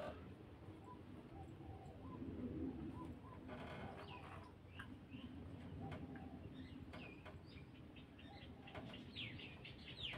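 Faint birdsong: a low cooing, with short, quick chirps that come more and more often toward the end.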